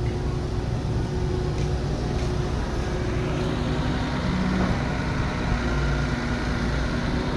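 Heavy construction machinery engine running steadily under load, a continuous low hum with a few steady tones above it.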